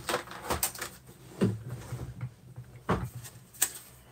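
A few separate knocks and clicks of hard objects being handled and set down on a wooden desk.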